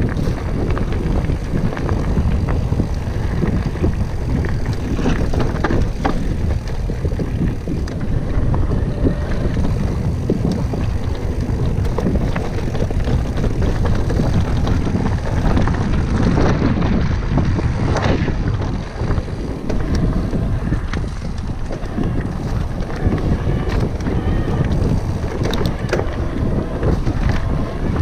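Wind rushing over the camera's microphone as a mountain bike rolls fast over a dirt and gravel trail, with a steady din of tyre noise and frequent small clicks and knocks from the bike rattling over the rough ground.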